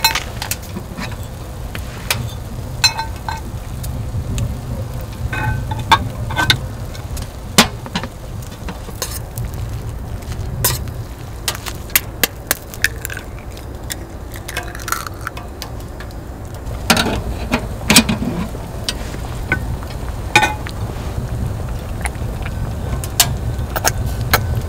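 Scattered sharp metal clinks and knocks, some ringing briefly, over a steady low rumble.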